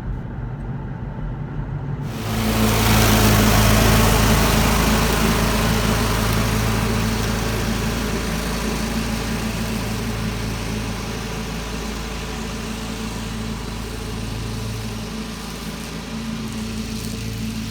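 An engine running steadily with a low hum, muffled at first. About two seconds in it changes abruptly to a louder, brighter engine sound with a strong steady drone.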